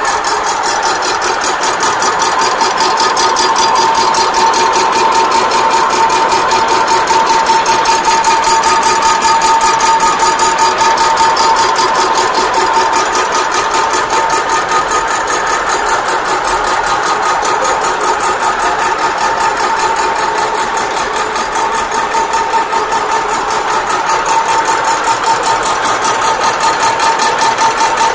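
BHAMBAR 3-in-1 universal milling machine running steadily, its drive giving a steady whine over a fast, even mechanical pulsing.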